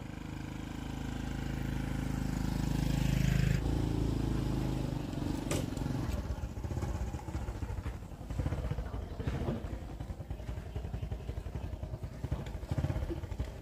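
Small motorbike engine running as the bike rides up close, getting louder until it cuts off suddenly about three and a half seconds in. After that, an irregular mix of background noise with indistinct voices.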